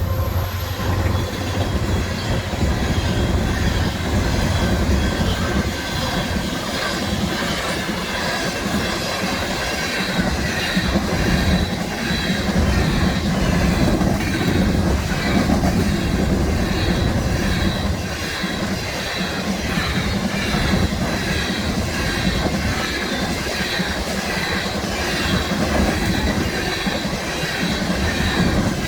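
BNSF coal train's hopper cars rolling steadily past, the wheels clattering over the rails with a thin, high squeal.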